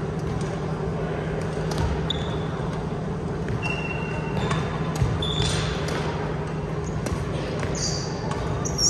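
Badminton doubles rally on a wooden gym floor: sharp racket hits on the shuttlecock and short, high sneaker squeaks, over a steady low hum.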